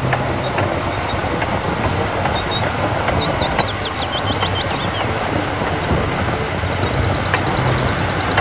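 Large diesel machinery running steadily with a low engine drone and continuous metallic clatter, with a few sharp clanks. Small birds chirp over it twice, a run of quick falling notes.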